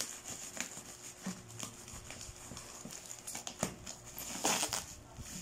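Black plastic bubble wrap crinkling and rustling as hands pull and tear it open, with a louder burst of rustling about four and a half seconds in.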